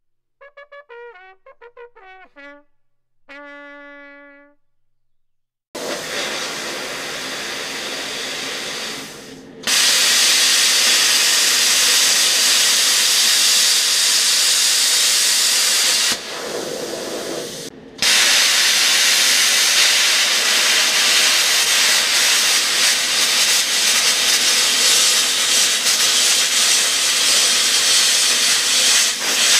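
A short brass-like musical fanfare, then a plasma cutter's hiss starts about six seconds in: quieter for the first few seconds, then loud and steady as the arc cuts through metal plate. The hiss drops back briefly around the middle and cuts out for a moment before coming back loud.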